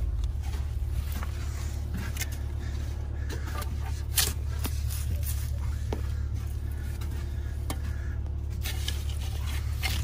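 A shovel scraping and chopping into sandy soil beneath the wall's footing, in short irregular strokes with a sharp knock about four seconds in. A steady low engine rumble runs underneath.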